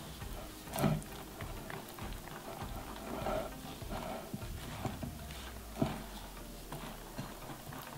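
Wire whisk stirring chocolate sour-cream batter in a glass bowl, its tines making soft irregular taps and clicks against the glass, with two louder knocks about a second in and near six seconds.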